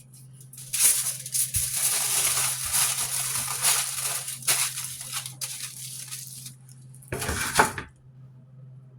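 Dry rustling and crackling handling noise with scattered small clicks, lasting about six seconds, then a short louder burst of rustling just after seven seconds.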